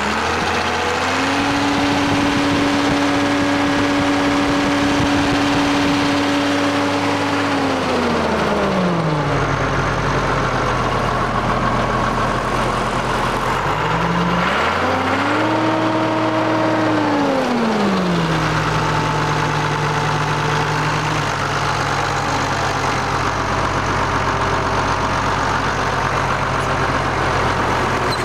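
1981 White 2-105 tractor's six-cylinder diesel engine revved up from idle, held raised for about seven seconds and let back down. About halfway through it is revved again for a few seconds, then settles back to a steady idle.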